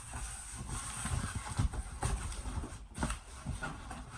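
Cardboard shipping box and its packing being handled: irregular rustling and scraping with dull knocks as the box is opened and the contents moved about.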